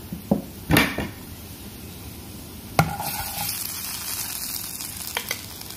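Asafoetida and mustard seeds sizzling in hot sesame oil in a kadhai for a tadka, with a few sharp clicks and knocks. About three seconds in, the mango pickle is scraped into the oil off a slotted spoon, and the sizzle grows louder and higher.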